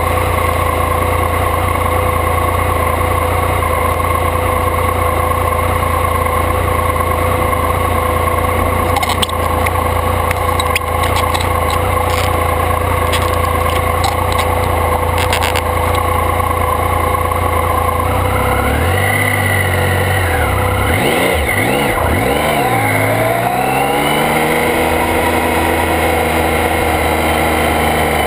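Sport motorcycle engine idling steadily, then pulling away about two-thirds of the way through, its pitch rising and falling through the gears before settling into a steady cruise.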